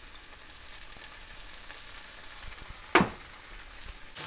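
Whole crickets sizzling as they sauté in hot vegetable oil in a pan, a steady hiss, with one sharp knock about three seconds in.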